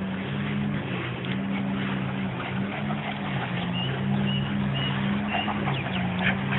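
A Rottweiler cross and a German Shepherd growling low and steadily in long stretches while they pull against each other on a rope tug toy.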